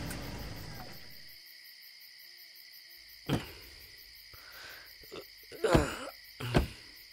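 Compact Ford sedan's engine running, then dying away about a second in, leaving crickets chirping steadily. Car doors are then opened and shut with three sharp knocks: one about three seconds in and two close together near the end.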